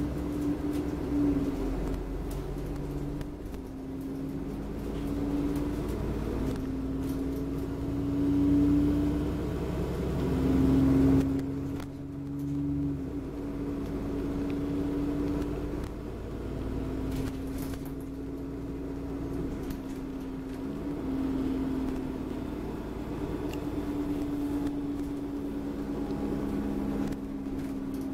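Alexander Dennis Enviro400 double-decker bus on a Dennis Trident chassis under way, heard from inside on the upper deck. The engine and drivetrain drone with a whine that rises and falls in pitch as the bus speeds up and slows. It is loudest about 8 to 11 seconds in and eases suddenly about 12 seconds in.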